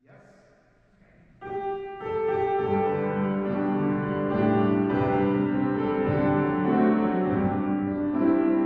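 Slow instrumental keyboard music of long held chords, starting faintly and coming in at full volume about a second and a half in.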